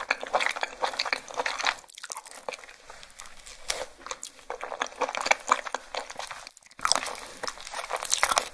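Close-miked mouth sounds of a person eating raw crab leg meat: wet chewing and sucking made of many small sharp clicks, in bursts that break off briefly about two seconds in and again near seven seconds.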